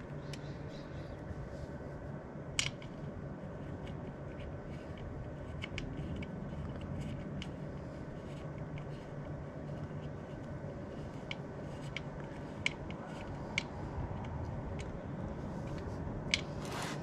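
Scattered small clicks and taps of an Allen key and hands working the bolts of a motorcycle chain guard as it is tightened on, over a faint steady hum.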